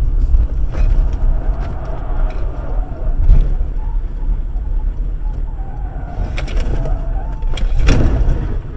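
Car cabin noise picked up by a dashcam while driving on a rain-wet highway: a steady low road-and-engine rumble with scattered clicks and knocks, a louder knock about three seconds in and another near the end, and a faint wavering tone at times.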